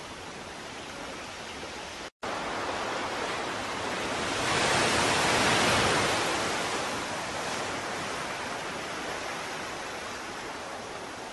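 Ocean surf: a steady rushing wash that swells to a peak about halfway through and slowly subsides. There is a split-second dropout to silence about two seconds in.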